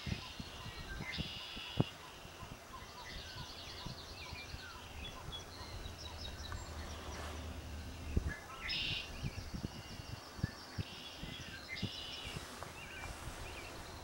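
Small songbirds singing in the background: several overlapping chirps and rapid high trills, over a low rumble of outdoor noise.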